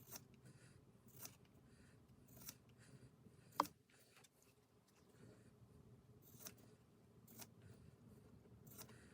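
Faint, scattered clicks and light scrapes of small objects being handled at a work table, with one sharper click about three and a half seconds in.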